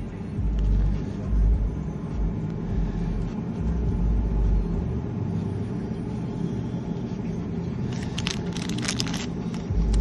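Mazda CX-9's V6 engine idling steadily. Near the end, the plastic bag around a key fob crinkles in a hand.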